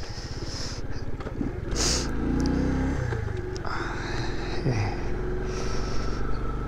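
Small 110 cc motorcycle engine running at low riding speed, with a brief rise and fall in revs about two seconds in.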